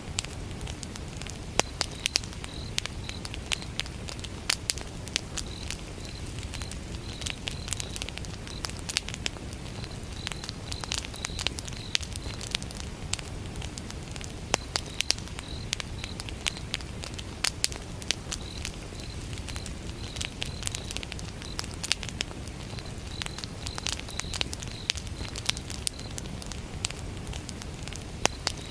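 Wood fire burning, with frequent sharp pops and crackles over a steady low rumble. Crickets chirp in short, high, rapid pulses that come and go in groups.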